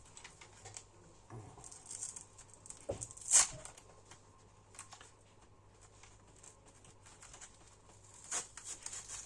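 Scattered small clicks, taps and scrapes of hands handling and starting to open a pair of plastic FPV video goggles. The sharpest click comes a little over three seconds in, and a few more come near the end.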